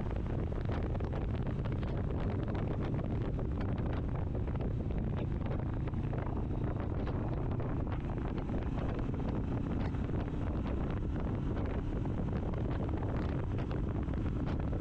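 Steady wind rushing over the microphone while riding a Kawasaki Vulcan S at road speed, with its 649 cc parallel-twin engine and road noise underneath.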